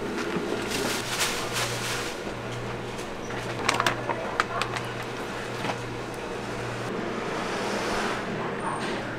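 Commercial kitchen background: a steady low machine hum, with a few sharp clinks and clatter about four seconds in.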